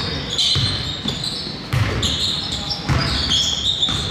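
A basketball bouncing on a gym floor about once a second, with repeated high-pitched squeaks in a large hall.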